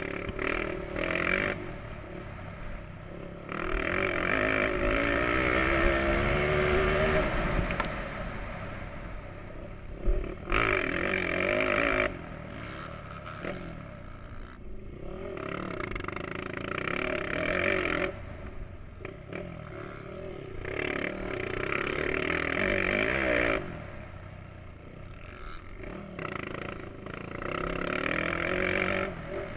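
Motocross bike engine heard from a camera on the bike, throttle opened hard in stretches of a few seconds with the pitch climbing through the gears, then dropping to quieter off-throttle running between them.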